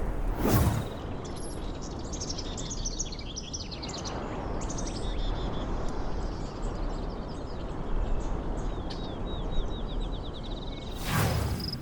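Birds chirping and trilling over a steady low wind-like rumble, with a brief whoosh about half a second in and another near the end.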